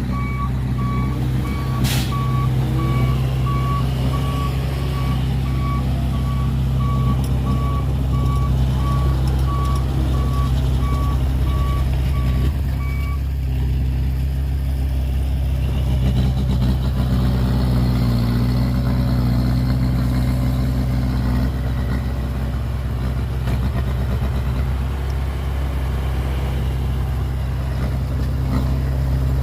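Heavy diesel machinery running steadily, with a reversing alarm beeping in an even rhythm that stops a little before halfway through.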